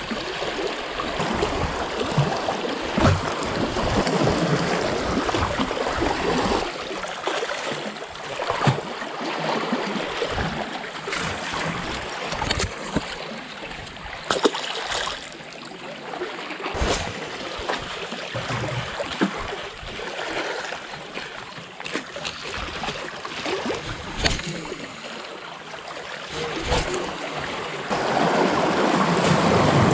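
Sea water sloshing and lapping around shoreline rocks, with scattered knocks and clicks of handling close to the microphone. The wash grows louder near the end.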